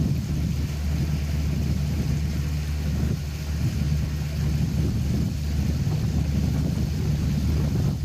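Boat engine running steadily under way, a low even drone.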